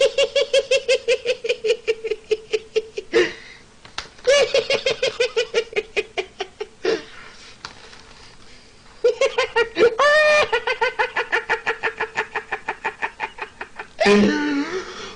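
A man laughing uncontrollably in rapid, high, evenly pitched pulses, about six a second, in three long bouts with short catches of breath between them.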